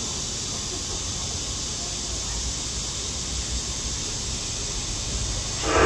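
Steady hiss and low hum of a stationary ITX-Maeum electric train's air-conditioning and auxiliary equipment running at the platform with its doors open. A louder sound starts right at the end.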